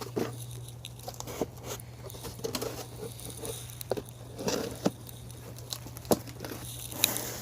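Cardboard box and styrofoam packing being handled: scattered knocks, taps and crinkles as the belt sander is set back into its box, over a low steady hum.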